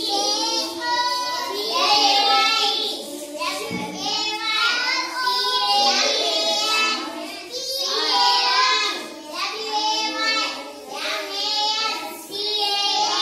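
Children singing together in a classroom activity song, high young voices in phrases with short breaks between them.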